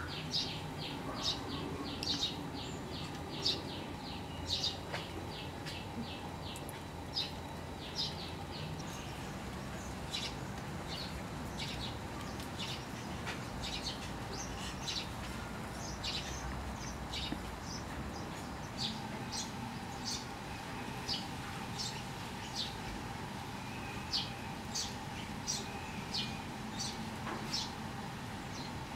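Small birds chirping in short, high calls: a quick run of chirps at first, then scattered ones, over a faint steady hum.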